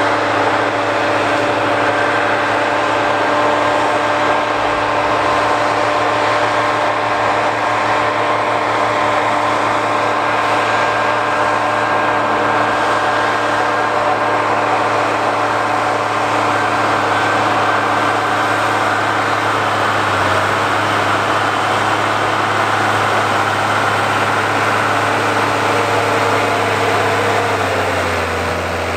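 Ford 9700 tractor's 135 hp six-cylinder turbo diesel running steadily under load while pulling a five-bottom moldboard plow. The engine note shifts slightly near the end.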